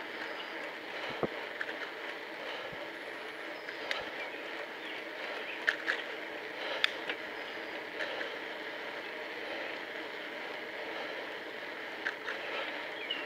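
Steady rushing noise of a bicycle ride as picked up by an action camera's microphone: tyres on the road and moving air, with a few sharp clicks and rattles from the bike about halfway through.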